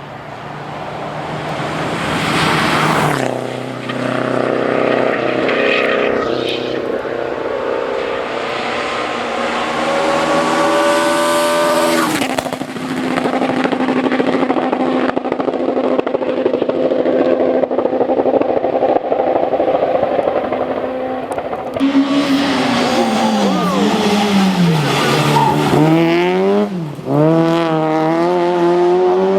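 Rally cars at full throttle on a special stage, one after another. The engines rev high and drop away with gear changes and lifts, and there is some tyre noise.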